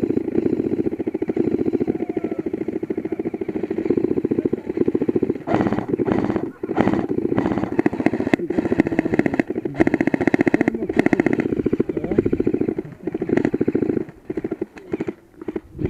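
Airsoft electric rifle firing long full-auto bursts: a fast, even buzzing rattle of the gearbox cycling, broken by short pauses.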